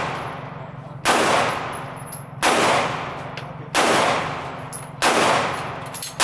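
9mm Smith & Wesson M&P 2.0 pistol firing slow, aimed single shots: four about a second and a third apart, with a fifth right at the end. Each shot is a sharp bang with a long ringing tail.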